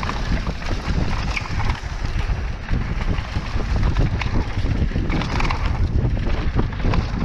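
Wind buffeting the microphone and a mountain bike rattling and clattering over rough trail on a descent: a dense run of small knocks over steady rumble.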